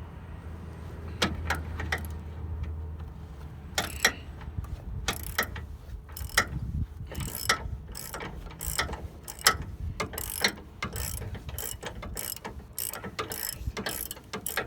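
Socket ratchet clicking in short, repeated bursts as bolts are worked loose, with a low steady hum under the first few seconds.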